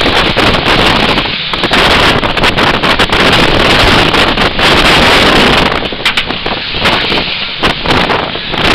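Strong wind buffeting the microphone in gusts, over the rush of water streaming past the hull of a sailing yacht driving hard in a Force 8 blow.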